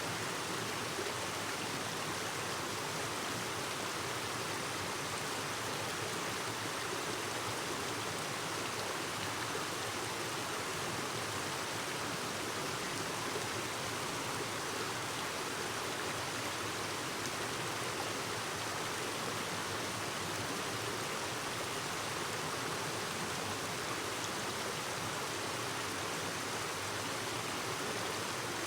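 Clear stream flowing, a steady, even rush of water.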